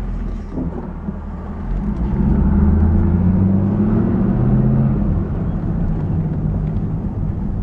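The 2001 Chevrolet Camaro Z28's 5.7-litre LS1 V8 pulls under acceleration while driving. It gets louder about two seconds in and eases off again after about five seconds.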